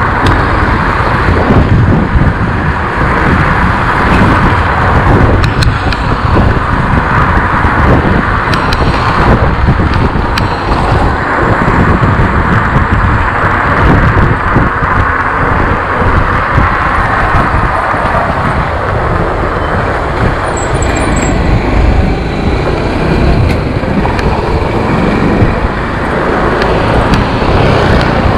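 Steady rushing wind and road noise from a moving e-bike ride, with wind buffeting the microphone in a loud, fluttering low rumble.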